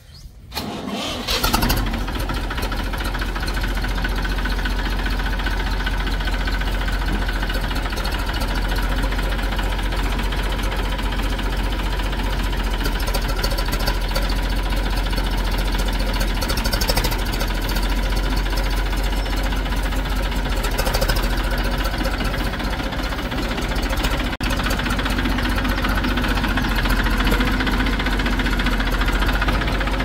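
Diesel engine starting about a second in, then running steadily.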